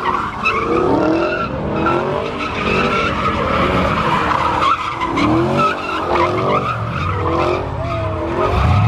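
Cars spinning donuts: engines revving up and down over and over while the rear tyres squeal and skid without a break.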